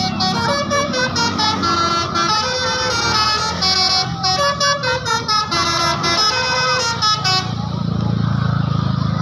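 Basuri 'telolet' musical bus horn playing a quick tune of stepping notes. About seven seconds in it changes to a rougher, warbling honk.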